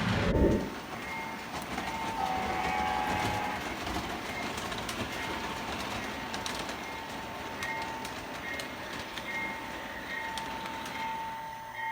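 Model train running on the layout's track, a steady rolling sound with faint clicks of wheels over rail joints, and a brief thump right at the start. A steady high tone comes and goes throughout.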